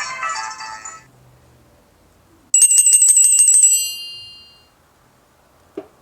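Nokia 6233 message alert tone: a quick run of about ten bright, high bell-like chimes lasting about a second and ringing out. Before it, the end of the previous ringtone fades out about a second in, and a faint click comes near the end.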